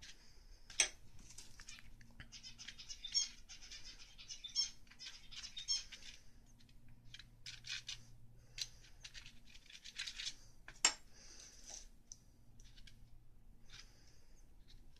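Small metal measuring spoon scraping and tapping on a paint-smeared board as paint is spread with it: faint scratchy rasps and clicks, with two sharp clicks standing out, a little under a second in and about eleven seconds in.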